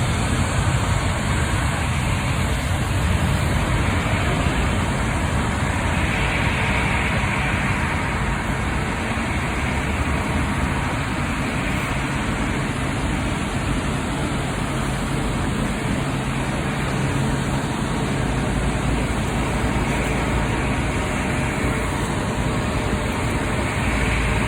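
Jet airliner engines at high thrust during a takeoff, a steady, loud noise heavy in low rumble.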